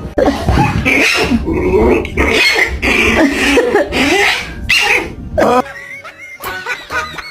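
An animal making a run of loud calls that bend in pitch, with short breaks between them. The calls stop about five and a half seconds in, and background music goes on after them.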